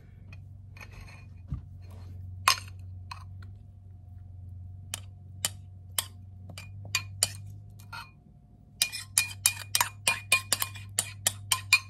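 A metal spoon clinking against a glass mixing bowl and a metal measuring cup as thick batter is scraped from one into the other: a few scattered clinks at first, then a quick run of clinks, several a second, from about nine seconds in. A low steady hum runs underneath.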